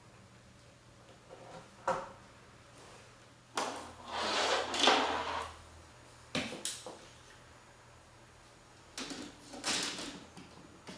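Plastic Chaos Tower marble-run parts being handled and fitted onto the tube frame: scattered clicks and knocks, with a longer scraping rub about four seconds in.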